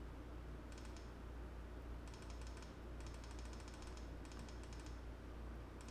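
Faint runs of rapid clicking from working a computer, in about four short bursts, over a steady low hum.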